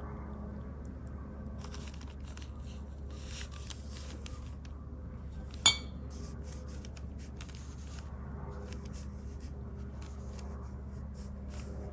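A single sharp, ringing clink of glass or china about halfway through, typical of a brush or dish knocking against a painting water jar or palette dish, over faint scratchy rustles of brushwork and a steady low hum.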